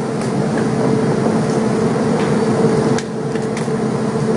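Steady mechanical drone with a low hum and a few faint clicks.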